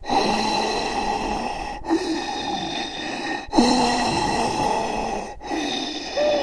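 Zombie growling and groaning sound effects: a rasping, breathy monster voice in a run of short takes, each about one and a half to two seconds long and cut off abruptly before the next begins.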